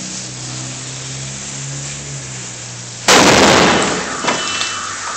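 Dynamite going off about three seconds in: one sudden, very loud bang that dies away over about a second, over a steady low hum. A smaller pop follows, and near the end a car alarm starts sounding, set off by the blast.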